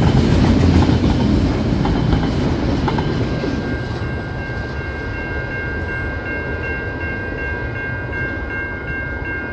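Container wagons of a freight train rumbling and clattering over a level crossing, the noise dying away about three to four seconds in as the last wagon clears. From then on the crossing's warning bell rings steadily with a high ringing tone.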